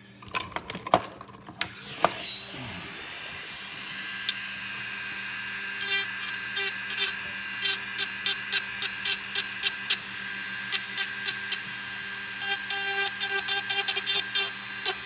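Clicks of the small part being handled, then a handheld rotary tool spins up with a rising whine about a second and a half in and runs steadily. From about six seconds on its bit grinds against the fin of a Glock trigger bar in many short touches, straightening it and rounding off its sharp, rough-cut edges.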